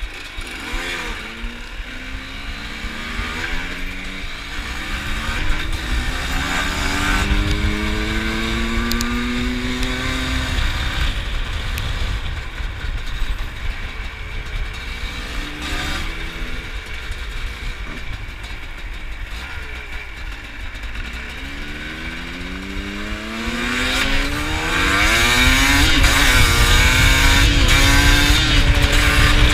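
Two-stroke dirt bike engine accelerating up through the gears in repeated rising sweeps, easing off in the middle, then pulling hard again and running loud near the end.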